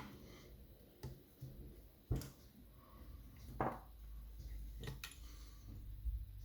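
A few sharp clicks and knocks, and one short scrape, as the small metal parts of a lever lock are handled and the curtain is fitted back into the lock case.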